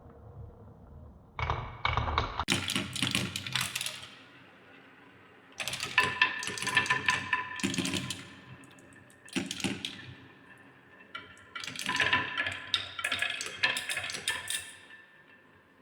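Balls clattering down a marble-run slider in four bursts of quick clicks and taps, each a second to a few seconds long, with a faint ringing tone under the clicks.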